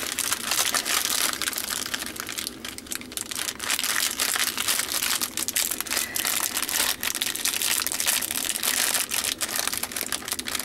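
Clear plastic bag packed with small packets of diamond painting drills crinkling steadily as hands turn it over and work at its end to open it, with many small crackles throughout.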